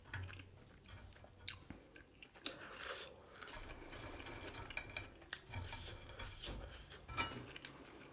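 A person chewing grilled pork sekuwa with their mouth close to the microphone, with frequent short wet clicks and smacks.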